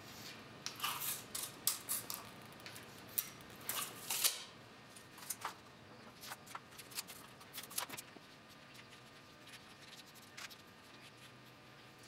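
A marking tool scratching across a steel plate as curved layout lines are drawn freehand: a quick run of short scratchy strokes for the first few seconds, then sparser strokes.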